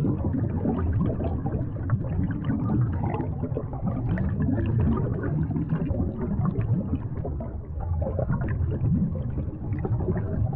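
Bubbling-water sound effect: a continuous low gurgle of many bubbles, thick with small pops.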